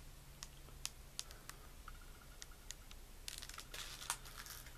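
Faint scattered clicks and crinkling of a clear plastic clamshell lure package being handled and opened, with a brief denser crinkle about three and a half seconds in.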